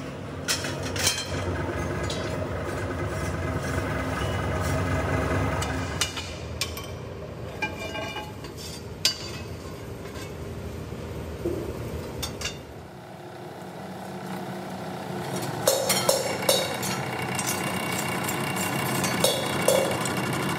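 Steady hum of a power press running, with sharp metallic clinks and knocks as steel pieces are handled and set under its ram. The knocks come singly in the first half and in a quicker cluster near the end.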